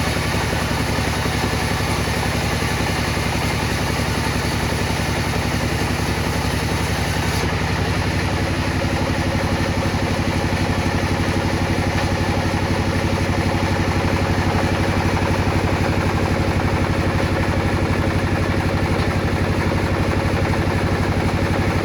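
Table saw running and cutting wood, a steady machine sound whose tone shifts about eight seconds in, when a new steady hum comes in.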